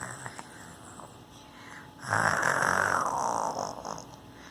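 A child making a fake snore: one loud, drawn-out snore starting about two seconds in and fading over about two seconds, after a faint short breath at the start.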